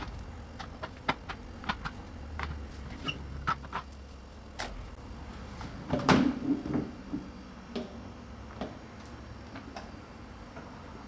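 Plastic outer tub of a Samsung front-load washer being handled and taken apart: scattered sharp clicks and knocks of plastic on plastic, with a louder scraping clatter about six seconds in as the front half of the tub is worked loose and lifted off.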